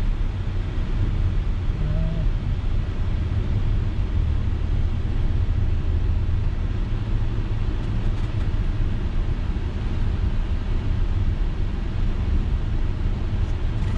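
Audi Q7 driving along: a steady low rumble of engine and tyre noise with no change in pace.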